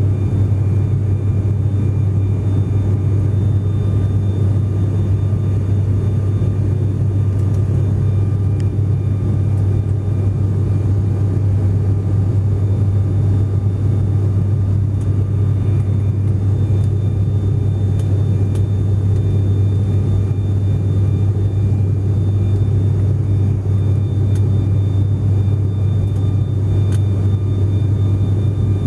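Steady low drone of an aircraft in flight heard from inside the cabin: engine and airflow noise, with a faint steady whine above it.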